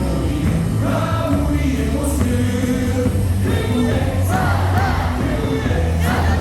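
Baseball cheer-song medley playing loudly over the stadium loudspeakers, with many voices singing along.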